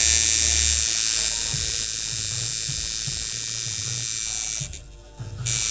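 Coil tattoo machine buzzing on a 6-volt supply, tuned as a liner: a steady, high buzz for about four and a half seconds that cuts off, then a short second run near the end.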